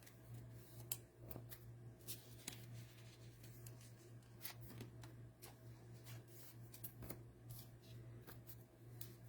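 Faint rustling and light clicks of trading cards being handled and sorted, over a low steady hum.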